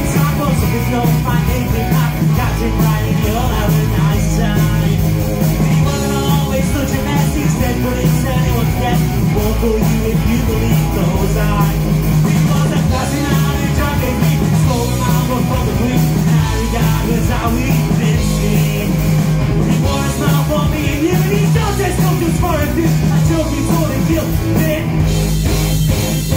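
Live rock band of electric guitar, bass guitar and drum kit playing a song at a loud, steady level.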